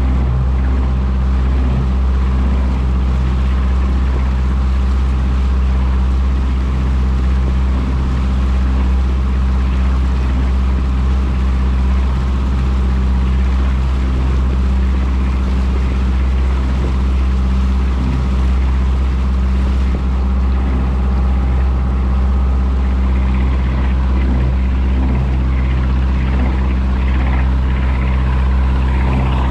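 A motorboat's engine running steadily under way, a low, even drone, over the rushing of water in its wake.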